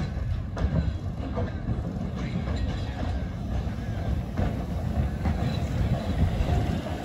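The narrow-gauge steam tank engine Dolgoch and its wooden coaches roll slowly past. There is a steady low rumble with irregular clanks and clicks from the wheels on the track.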